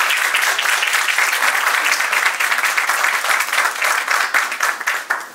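Audience applauding: many hands clapping together in a dense, steady patter that dies away near the end.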